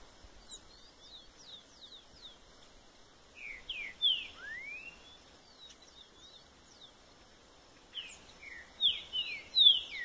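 Green-winged saltator (trinca-ferro) singing in the 'boiadeiro' song type: two loud phrases of slurred whistled notes, about four seconds apart, the first ending in a rising whistle. Fainter, higher quick falling notes come between the phrases.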